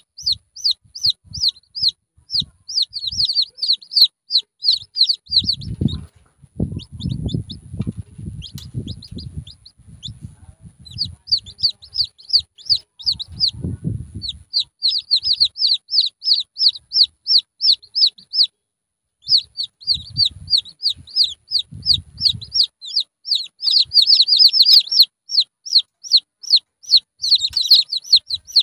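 Junglefowl chicks peeping without pause: high, falling cheeps several times a second, with a couple of short breaks. Low bumps and rustles come now and then.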